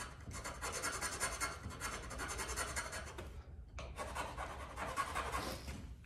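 A hand file rasping back and forth on the wooden walls of a scratch box turkey call, bringing them down to height. Two runs of quick strokes with a short pause a little after halfway.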